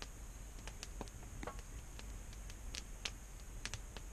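Wood campfire crackling: scattered sharp pops and snaps at irregular intervals over a faint steady background.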